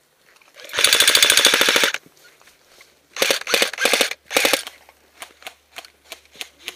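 Airsoft rifle firing on full auto. First comes one rapid burst of about a second, then four short bursts in quick succession. After them come faint ticks, about three a second.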